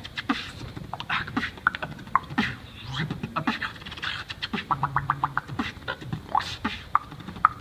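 Human beatboxing: rapid mouth percussion of clicks, kick and snare sounds in a quick rhythm, with a fast run of clicks and a short low hummed note about five seconds in.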